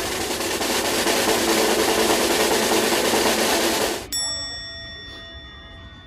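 Edited-in sound effects: a loud hiss of noise that stops abruptly about four seconds in, followed by a single bell-like ding that rings out and fades.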